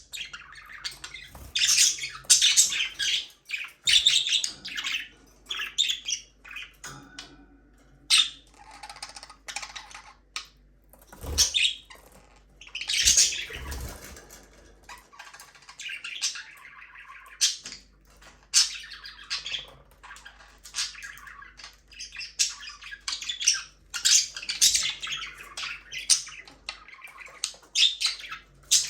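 Budgerigars chirping and chattering in quick clusters of high calls, with short pauses between them. A couple of low knocks sound around the middle.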